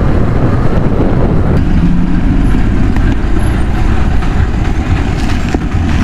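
Jawa motorcycle's single-cylinder engine and exhaust running steadily at cruising speed, heard from on the bike along with road noise.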